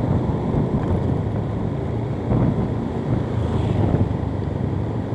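Motorcycle engine running steadily at low road speed, with wind rumbling on the microphone.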